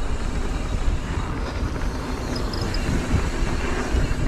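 Steady wind buffeting on an action camera's microphone, with the rumble of mountain bike tyres rolling over a dirt trail.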